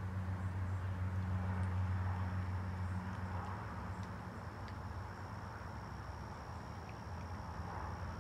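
An insect's steady high-pitched trill starts about a second and a half in and holds on, over a low hum that fades away after about three seconds.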